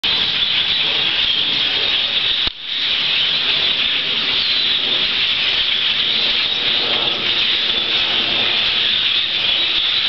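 A huge flock of birds passing overhead, their massed calls merging into a loud, steady, high chatter with a brief dropout about two and a half seconds in.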